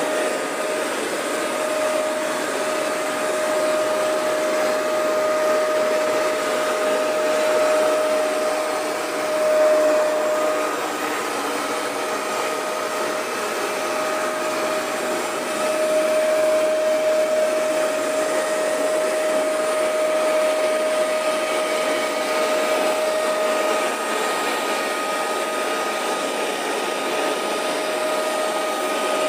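Hoover Max Extract 77 carpet deep cleaner running, its suction motor giving a steady rushing whine as it makes cleaning passes. The high whine fades out for a few seconds about ten seconds in and again later on, then comes back.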